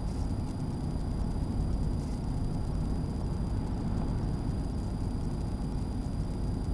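In-cab road noise of a Ford F350 diesel pickup cruising at highway speed: a steady low rumble of engine and tyres.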